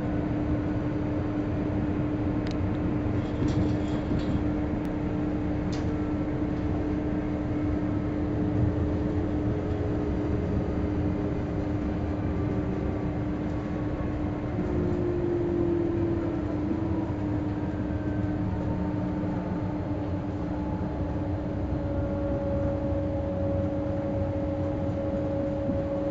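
Inside a moving passenger train: a steady rumble of the running train on the track, with a steady hum throughout and a higher tone joining near the end, and a few faint clicks early on.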